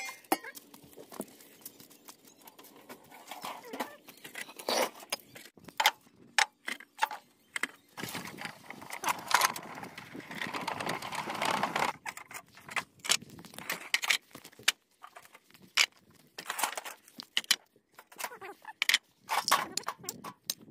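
Irregular knocks and clatter of household items and junk being picked up and moved while a cluttered corner is cleared out, with a denser stretch of scraping and rustling about eight to twelve seconds in.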